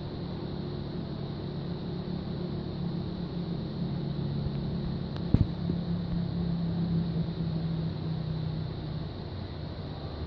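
Steady low hum and rumble of background machinery, with a single sharp knock about five seconds in; the hum fades out near the end.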